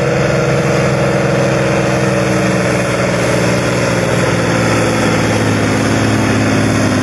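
Ursus 1224 tractor's diesel engine running loud and steady under a tractor-pull load, its pitch sinking slowly over the second half.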